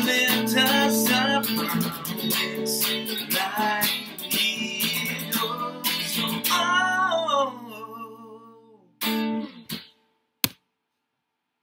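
Telecaster-style electric guitar strummed in chords, with a man singing along, as a song ends: the playing fades out about seven seconds in, one last strummed chord rings out around nine seconds and dies away, and a single sharp click follows near the end.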